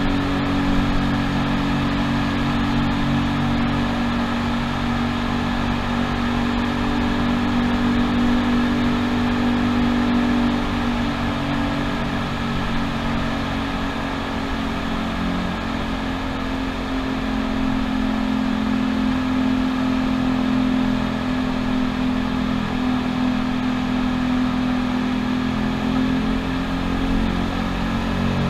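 Yamaha Cygnus 125 cc single-cylinder scooter engine running at steady cruising speed, with wind and tyre noise, in a road tunnel. The engine note sags slightly about halfway through and then picks up again.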